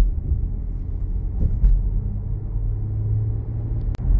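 Road and engine noise of a car driving, heard inside the cabin: a steady low rumble with a faint hum. There is a single sharp click near the end.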